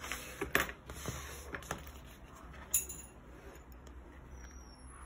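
Metal swivel snap hook clinking against the bag's metal ring as it is clipped onto it: a few small, sharp metallic clicks in the first three seconds, the last one a little before the three-second mark.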